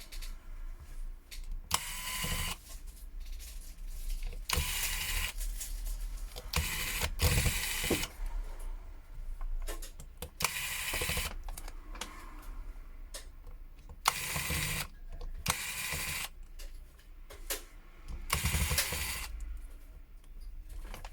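Screwdriver working the small screws out of the back of an LG K10 phone, in about seven short whirring bursts a few seconds apart.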